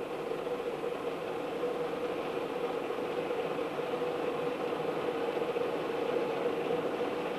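Steady hum of ice cream factory machinery running at the mixing tank, one constant mid-pitched tone over an even mechanical noise.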